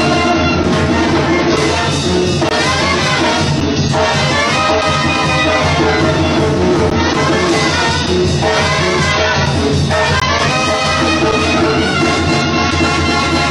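Mexican banda brass band playing: trumpets and trombones over drums, at a steady loud level.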